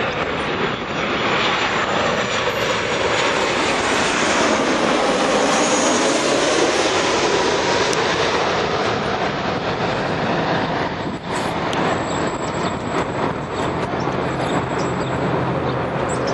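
Airliner flying past, its engine roar swelling to a peak about five seconds in and staying loud afterwards.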